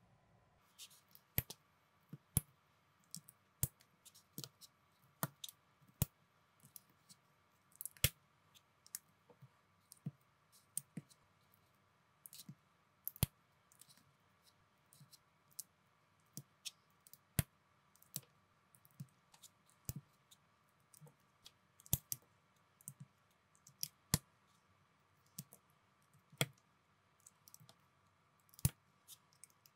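Plastic Lego-compatible building bricks clicking as hands press them together and handle them, in sharp, irregular clicks about once or twice a second.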